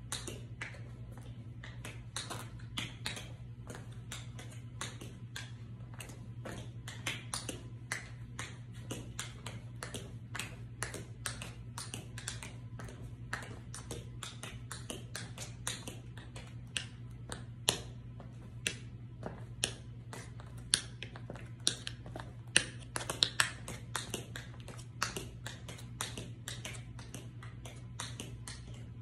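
Tap dancing: metal taps on patent tap shoes striking a smooth hard floor in a quick, irregular stream of sharp clicks, with the loudest, sharpest strikes in the second half.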